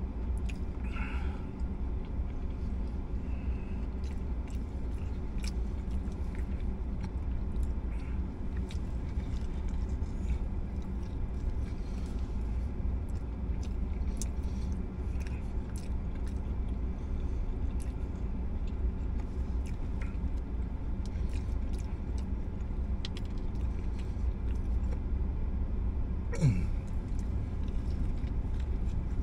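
A person biting into and chewing a crispy fried chicken sandwich, with scattered small crunches, over a steady low rumble. Near the end there is a short sound sliding down in pitch.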